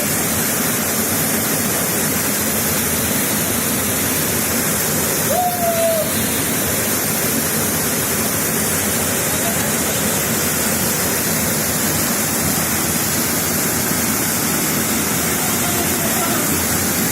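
Nafakhum waterfall: water pouring down with a steady, loud rush.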